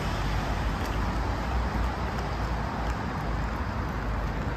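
Street traffic noise: a steady hum and rumble of passing cars.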